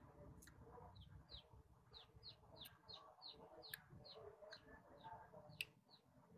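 Faint bird peeping: short, high notes that fall in pitch, repeated about two a second, with a few sharp clicks in between.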